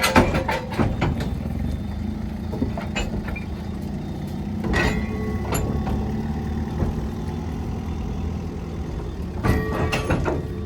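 Shunting locomotive's diesel engine running steadily, with sharp metallic clanks near the start, around the middle and near the end.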